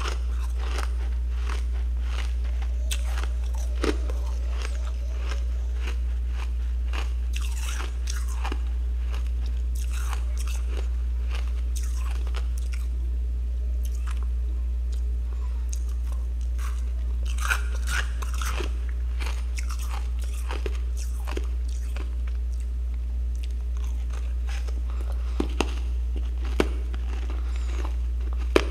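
Freezer frost being bitten and chewed: a long run of crisp, irregular crunches over a steady low hum.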